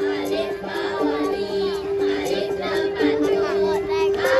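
Music with a melody of steady held notes, and children's voices singing along over it.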